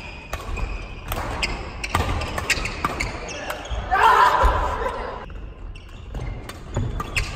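Badminton doubles rally: rackets strike the shuttlecock in a quick exchange, with sharp hits about every half second, while shoes squeak and thud on the wooden gym floor. There is a louder burst of noise about four seconds in.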